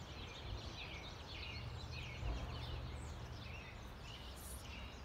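Several songbirds chirping and singing, many short overlapping calls, over a faint steady low background noise, with a soft low thump a little over two seconds in.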